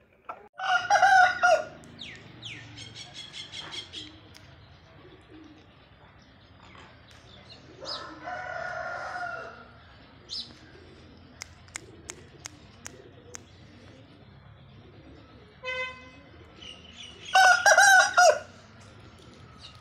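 Aseel roosters crowing: a loud, short crow about a second in, a weaker one near the middle, and another loud crow near the end.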